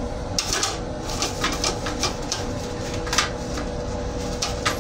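Interior of a Metro-North M7 railcar restroom: a steady low rumble with a faint steady hum, broken by irregular sharp clicks and rattles every half second or so.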